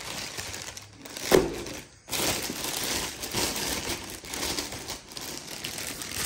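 Packaging crinkling and rustling as a speaker is handled and unwrapped, with a sharp bump about a second in.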